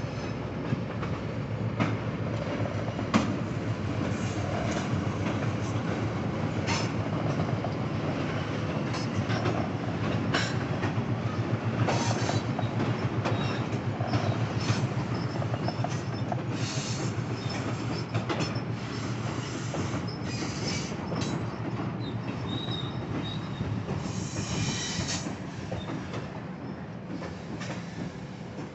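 Freight train rolling across a steel truss bridge: a steady rumble of the cars, with repeated clicks of the wheels over the rail joints. Several short high wheel squeals come through.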